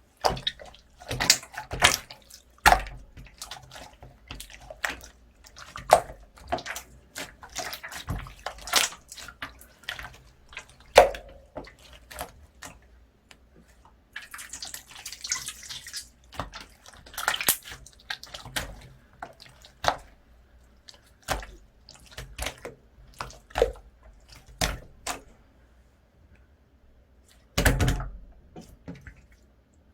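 Hands kneading and folding slime: irregular wet, sticky pops and clicks, several a second at times, with a longer crackling stretch about halfway through.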